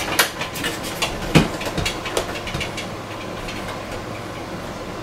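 A few light taps and knocks in the first couple of seconds as a sign and tape measure are handled against a door, then a steady low hum.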